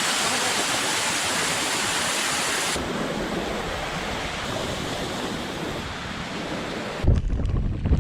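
Steady rush of water, like a monsoon waterfall or swollen stream. About seven seconds in, wind starts buffeting the microphone with a low rumble.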